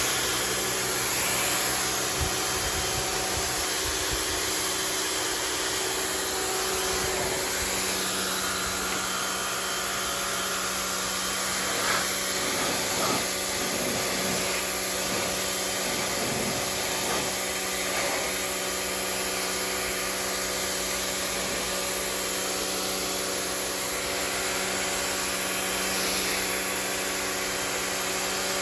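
Rock&Rocker HWY12 high-pressure washer running steadily, its motor humming under the hiss of the water jet spraying onto concrete.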